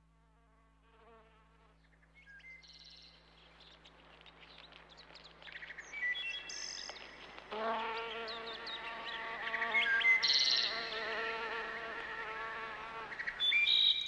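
A buzzing insect such as a fly, its wavering drone getting loud about halfway through and holding for several seconds, with short high bird chirps over it.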